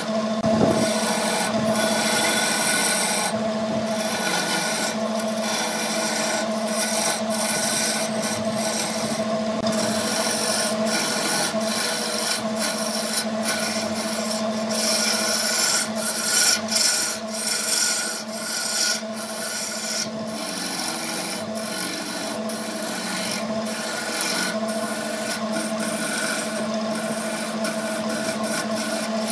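A BURT wood lathe running with a steady motor hum while a hand-held turning chisel cuts into a spinning wood blank, making a continuous uneven scraping of the tool shaving the wood.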